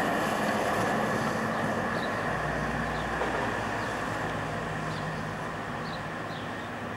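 An articulated electric tram running on street track and moving away, its rolling noise fading gradually.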